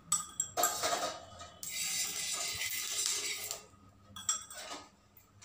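A metal spoon clinking and scraping against a small steel oil pot, with a hiss of oil sizzling on a hot iron pan for about two seconds in the middle.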